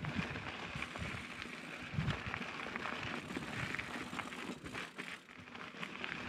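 Mountain bike rolling fast over a loose gravel and rock singletrack: tyres crunching on the dirt and the bike rattling, with frequent small knocks from rocks and a heavier thump about two seconds in.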